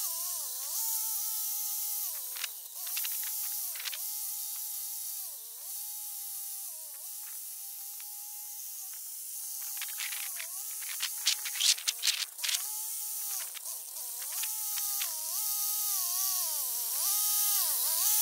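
Scout tractor engine running under load with a rotary tiller, sped up into a high buzz whose pitch dips briefly every second or two as the load rises. Scattered sharp clicks, densest about two-thirds of the way through.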